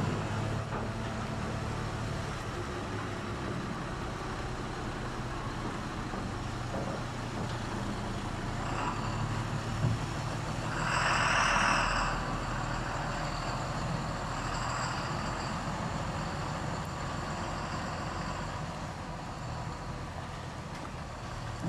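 Diesel engine of a heavy lorry loaded with logs running steadily at low speed as it moves through a muddy yard. A thin high squeal comes and goes near the middle, and there is a brief louder hiss about halfway through.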